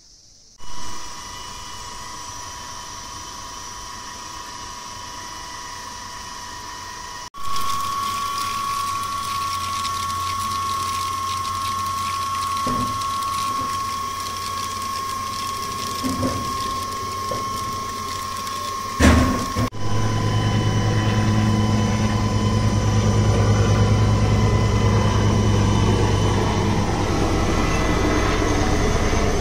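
A steady machine-like whine and hum with a constant high tone, and a sharp knock about two-thirds of the way through.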